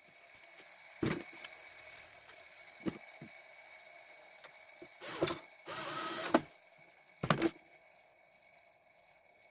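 Electric drill running steadily at a low hum, with several sharp knocks and a short rasping burst about six seconds in.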